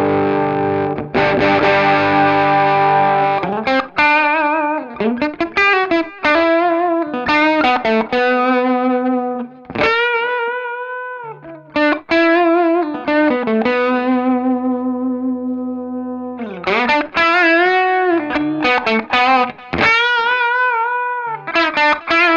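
Harley Benton SC-550 electric guitar, mahogany-bodied with humbuckers, played with a distorted tone: a ringing strummed chord first, then a single-note lead melody with bends and vibrato, and one note held for several seconds in the middle.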